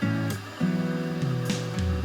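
Background music: held instrumental notes and chords, changing every half second or so.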